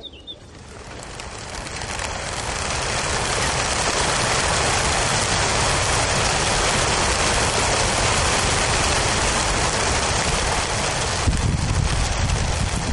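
A large flock of racing pigeons taking off together from a transport truck's release crates: a dense, rain-like rush of wingbeats that swells over the first few seconds and then holds steady. A deeper rumble joins near the end.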